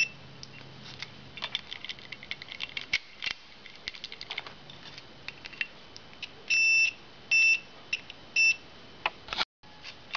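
Multimeter continuity beeper on a motorcycle ignition switch: a steady high beep that cuts in and out, one longer beep about six and a half seconds in, then two short ones, over small clicks and rattles from the key being worked. The on-off beeping shows the switch making contact only some of the time, which the owner takes for a possibly faulty ignition switch.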